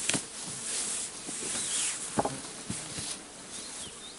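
Rustling of clothing and grass as a man crawls into a low tarp shelter, with a few soft knocks of body and gear against the ground.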